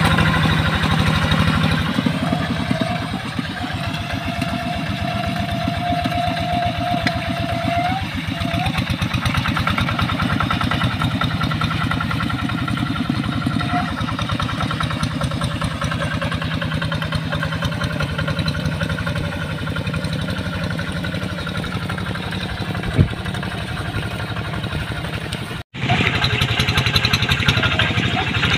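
Two-wheel hand tractor's single-cylinder diesel engine running steadily with a fast even pulse, under load while pulling a moldboard plow through wet paddy mud. A steady high tone rides over it for about five seconds near the start, and the sound drops out for an instant near the end.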